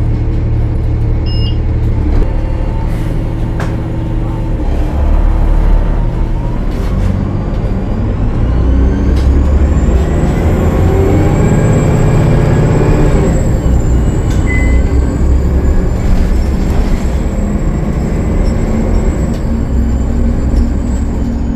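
Cummins ISL9 diesel engine of a 2013 Gillig Low Floor transit bus running under load, its pitch rising as the bus accelerates between about eight and thirteen seconds in. A thin, high turbo whistle comes in about ten seconds in and holds, which the uploader puts down to a turbo leak.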